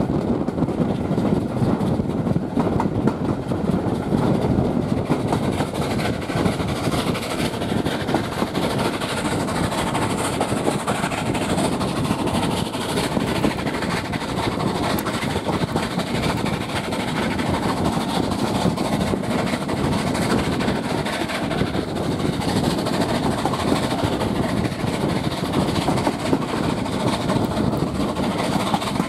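Steam-hauled passenger train running along the line, heard from a carriage window: a steady rumble and rattle of the coach wheels on the rails, mixed with wind rushing over the microphone.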